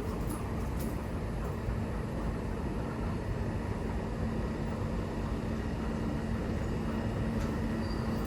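Train in the station giving a steady rumble with a constant low hum, and a few faint clicks.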